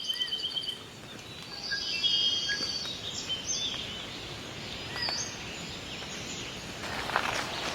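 Birds chirping and trilling in short high phrases over a steady outdoor background hiss. Footsteps begin near the end.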